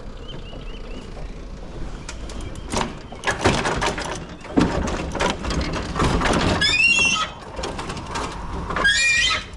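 Metal hand trucks and a truck liftgate clattering and knocking during unloading, with two short high squeals in the last three seconds.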